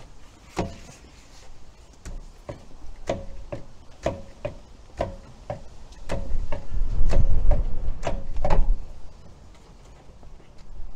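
Sharp knocks with a short metallic ring, about two a second, as the mechanic works a car's alloy wheel loose from the hub by hand. A heavier low rumble joins the knocks in the middle, and they stop as the wheel comes free near the end.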